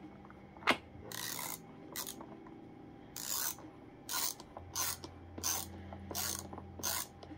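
Ratcheting screwdriver set to tighten, worked back and forth to drive a screw into a vacuum cleaner's handle. The ratchet clicks in about a dozen short strokes, roughly one every half second.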